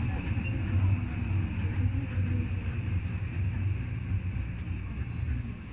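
Tokyo Metro Hibiya Line subway train heard from inside the front car: a steady low rumble of wheels and running gear, with a faint motor whine that slowly falls in pitch.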